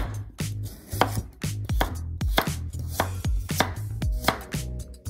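Chef's knife chopping carrots on a bamboo cutting board: a string of sharp knocks, about two to three a second, as the blade strikes the board through the carrot.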